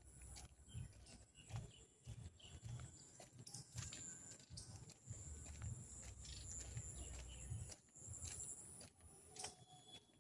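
Faint footsteps of a person walking on a paved tile path, dull thuds about twice a second, with a faint steady high tone behind them.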